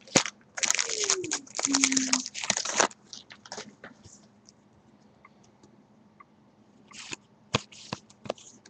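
A foil trading-card pack wrapper torn open and crinkled for about three seconds. Then come faint, scattered clicks and taps as the cards are handled.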